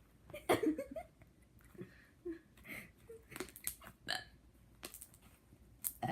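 A person burping: one longer, loud burp about half a second in, followed by a series of short, abrupt sounds.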